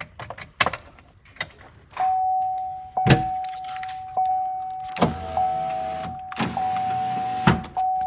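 Chevrolet Silverado power window motors whining in a string of runs, each started or stopped by a sharp click of the door switches. The windows are working again now that the broken wire in the door harness has been re-soldered. A few light clicks come first, before the motors start about two seconds in.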